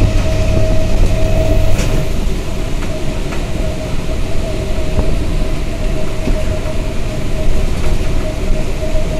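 Inside a passenger train carriage under way: the steady, loud rumble of the running train, with a constant hum throughout and a few light clicks.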